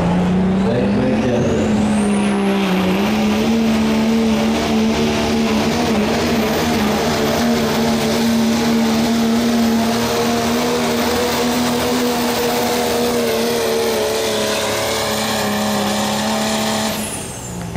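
Diesel pickup truck at full throttle pulling a weight-transfer sled, its engine note steady and strong. A high turbocharger whistle climbs over the first few seconds and holds. Near the end the engine lets off and the whistle falls away.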